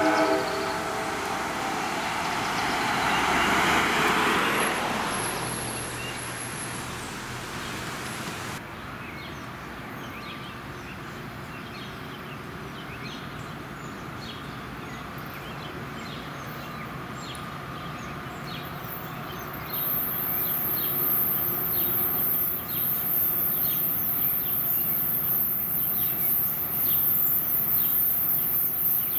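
NJ Transit commuter train of Bombardier MultiLevel coaches rolling past on curved track, with the last of its horn blast just ending at the start; the rolling noise swells to its loudest about four seconds in. After a cut, a quieter stretch of outdoor noise follows, and about twenty seconds in the sound steps up as the next train approaches.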